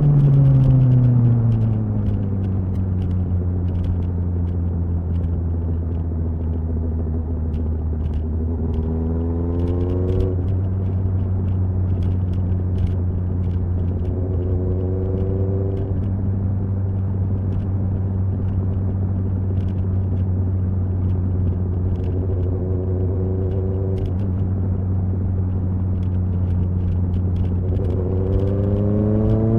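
Kawasaki ZXR motorcycle's inline-four engine heard while riding, in raw sound with no music. The revs drop at the start, then it holds a steady cruising drone, with short rises in pitch a few times as it pulls harder, and it climbs again near the end.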